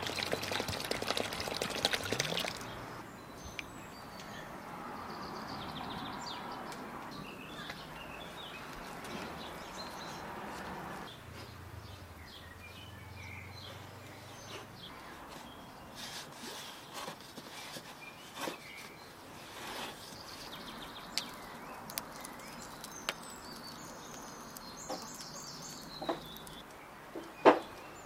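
Water poured from a terracotta jug splashing into a well of flour for about two and a half seconds, then quieter handling sounds with birds chirping in the background. A sharp click near the end is the loudest moment.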